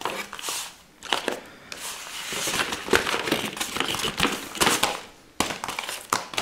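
Cardboard and plastic packaging being handled while a headset is pulled from its box: irregular rustling with short clicks and scrapes.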